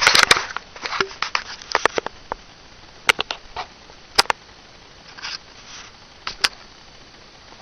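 Camera handling noise: a short burst of rustling at the start, then scattered sharp clicks and taps close to the microphone.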